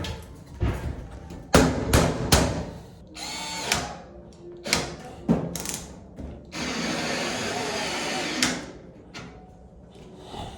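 A cordless power driver runs twice, briefly about three seconds in and then steadily for about two seconds past the middle, among a string of sharp knocks and clatter.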